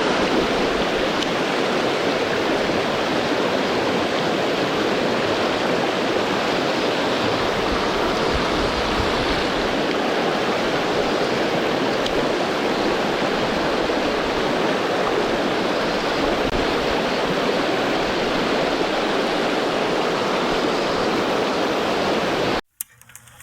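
Swollen mountain stream rushing, a steady loud rush of water that cuts off abruptly near the end.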